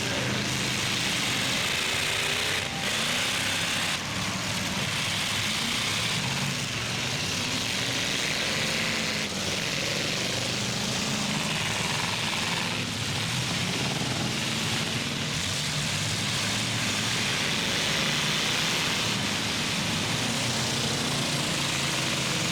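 Several demolition derby truck and SUV engines running loud together, a continuous mechanical din, with a few faint knocks along the way.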